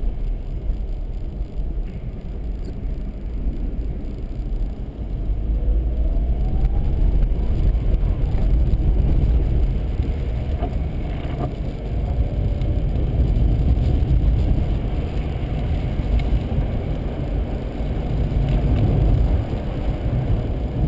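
Car driving along a winter road, engine and tyre noise making a steady low rumble.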